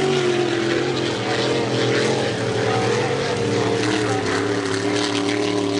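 Racing speedboat engines running hard at high revs, their pitch wavering slightly as they hold speed, with more than one engine tone heard at once.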